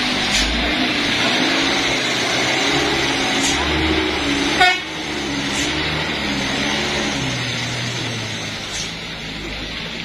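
Light box truck's engine running and revving unevenly as the truck drives off and away, over a steady hiss from the wet road. A short, sharp sound with a quickly falling pitch comes about halfway through and is the loudest moment.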